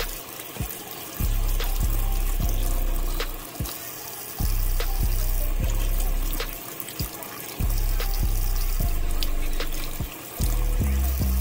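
Kitchen faucet running into a steel sink, the stream splashing as hands rinse raw chicken pieces under it. Background music with deep bass notes that come and go every few seconds plays over it.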